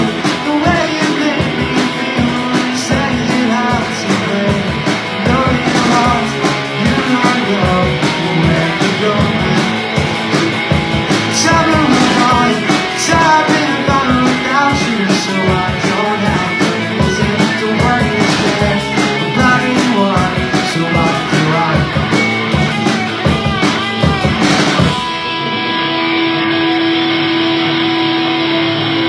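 Rock band playing: drums, electric guitar, bass and a singer. About 25 seconds in the drums and singing stop, leaving a single held guitar chord ringing.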